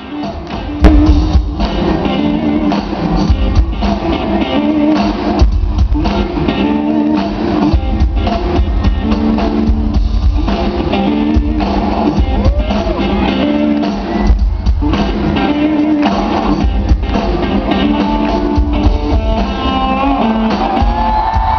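Live band playing loud amplified rock with electric guitar and drum kit, heard from within the audience; the full band comes in hard about a second in.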